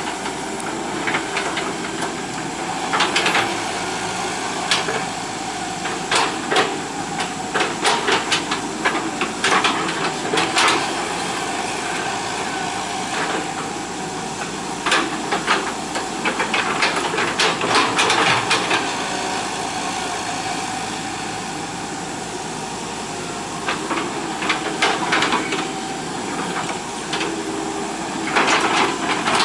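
Hitachi EX120 hydraulic excavator working, its diesel engine running steadily under many sharp clanks and knocks that come in clusters, with a hiss alongside.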